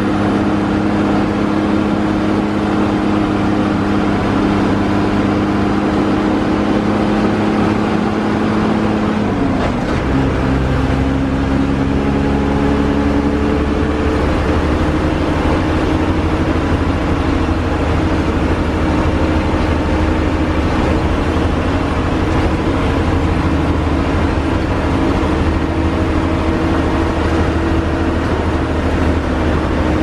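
MSRTC Hirkani bus's diesel engine running under way, heard from inside the driver's cab. About ten seconds in the engine note drops and a deeper low rumble sets in and holds.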